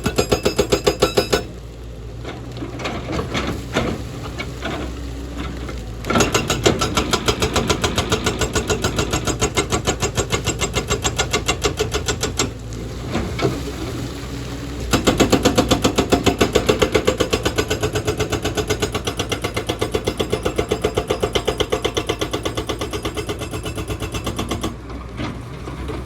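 Excavator-mounted hydraulic breaker hammering in long runs of rapid, evenly spaced blows, with the machine's diesel engine running in the pauses between runs.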